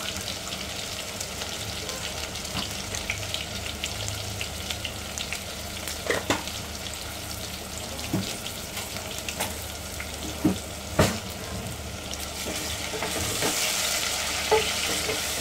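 Sliced onions sizzling steadily in hot oil in an aluminium pressure cooker, with a few sharp clicks. Near the end a wooden spoon stirs them and the sizzling grows louder.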